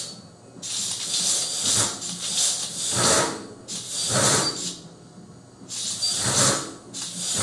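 Hissing in repeated short bursts, about five in a row, each lasting roughly a second with brief pauses between.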